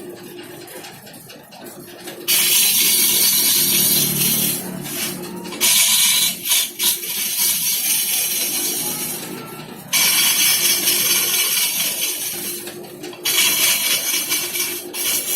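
Wood lathe running with a steady hum while a turning tool cuts the spinning wood in four separate passes, each starting abruptly and lasting about three seconds.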